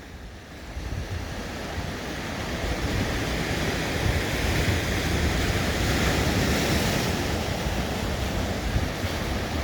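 Sea waves washing on the shore, with a wave's hiss swelling up about two-thirds of the way through. Wind buffets the microphone with a steady low rumble.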